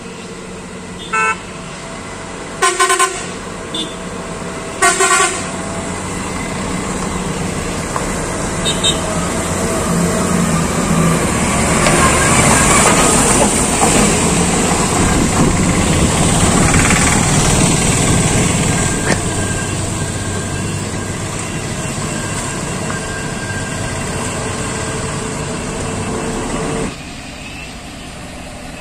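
Heavy BharatBenz tipper truck's diesel engine running close by, swelling to its loudest as it passes and then fading to a steady rumble, with a vehicle horn tooting three times in the first few seconds. The noise drops suddenly near the end.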